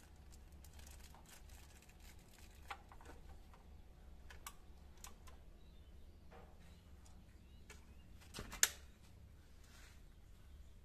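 Faint clicks and handling noises of a PCP air rifle being loaded and cocked by hand, with a sharper metallic click about eight and a half seconds in as the action is worked.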